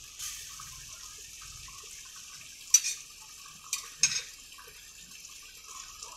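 A chicken karahi simmering with a steady hiss, and metal tongs clicking sharply three times against the pan and a glass plate in the second half as tomato skins are lifted off.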